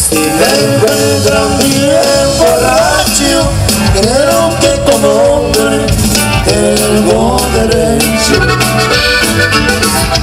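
Live norteño band playing loud dance music, an accordion carrying the melody in running phrases over a steady bass and rhythm.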